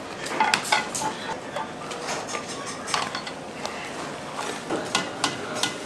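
Kitchen clatter: scattered sharp clinks and clicks of utensils against dishes and pots.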